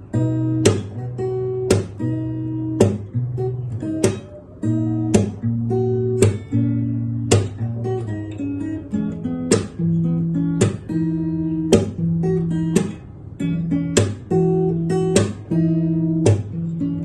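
Acoustic guitar played fingerstyle: a melody over sustained bass notes, with a sharp strummed accent about once a second.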